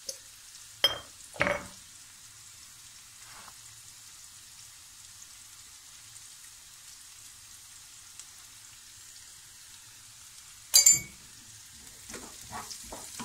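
Boiled chickpeas frying in oil in a pan, with a steady soft sizzle. A few sharp knocks on the pan, two about a second in and a louder one near the end, then a wooden spoon scraping and stirring the chickpeas in the last second or so.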